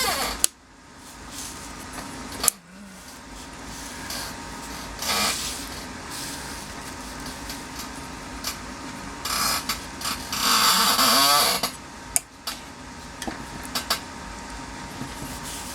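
Small tools and metal parts being worked on a GM tilt/telescopic steering column while a turn signal switch is fitted: sharp clicks and knocks, and a few short rasping bursts. The longest burst comes about ten seconds in and lasts over a second.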